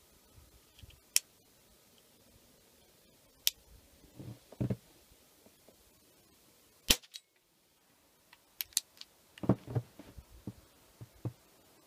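Crosman E9A .22 CO2 pistol firing a single sharp shot about seven seconds in. Before and after the shot come small metallic clicks and low knocks from the pistol being handled and its bolt worked.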